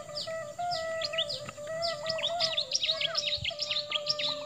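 Many quick, high falling bird chirps, thickest in the second half, over background music with a sustained, slowly stepping melody.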